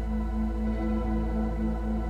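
Ambient background music: a steady low drone under a tone that pulses about four times a second, with softer held notes above.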